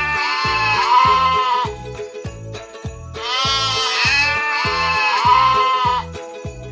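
Goat bleating: a long, wavering bleat trails off a couple of seconds in, and a second long bleat follows about three seconds in. Children's music with a steady beat plays underneath.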